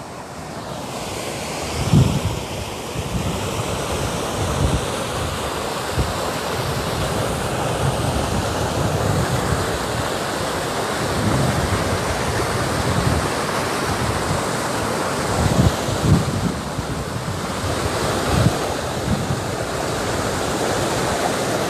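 Muddy rainwater runoff rushing fast down a gully over rocks, a steady rushing roar of floodwater pouring off a waterlogged field. Wind buffets the microphone a few times, about two seconds in and twice near the end.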